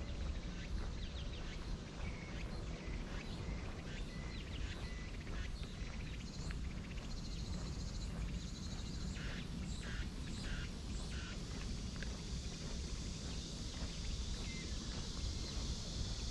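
Outdoor summer nature sound: a run of short bird calls in the middle, then a steady high cicada drone that sets in during the second half, over a low rumble.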